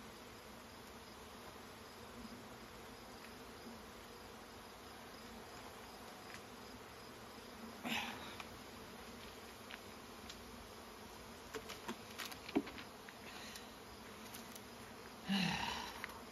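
Honey bees buzzing as a steady hum around an opened hive, stirred up and flying after being disturbed. Wooden hive boxes knock and scrape now and then as they are handled, loudest near the end when a box is set down.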